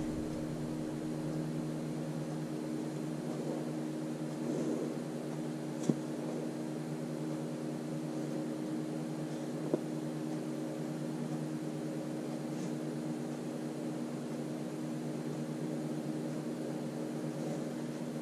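Steady low machine hum, like a fan or room appliance running, made of several held tones. Two light taps stand out, about six and ten seconds in, as painted bottle caps and a dotting tool are handled on the table.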